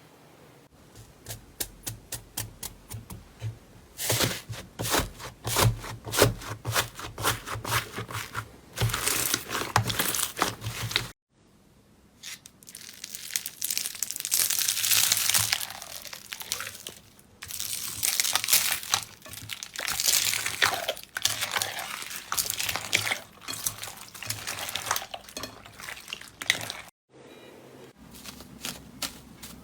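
Slime being squeezed and stretched, giving rapid sticky pops and crackles; the sound cuts off sharply about 11 and 27 seconds in as one clip gives way to the next.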